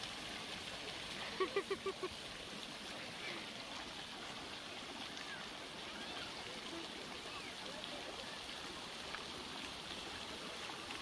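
Faint, steady rush of water at a splash pad, with distant voices mixed in.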